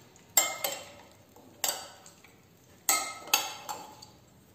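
Parboiled potato wedges being mixed with olive oil in a bowl: a utensil knocks and clatters against the bowl in irregular strokes, about six in all.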